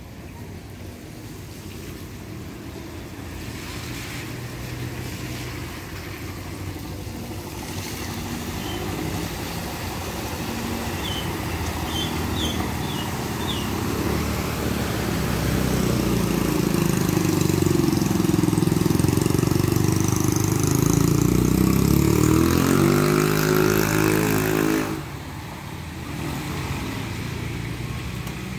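Motor vehicles driving through a flooded street: engines running and tyres splashing through the standing water. The sound builds as a car and a motorbike pass close by, is loudest a little past the middle as the engine note falls, then drops off suddenly a few seconds before the end.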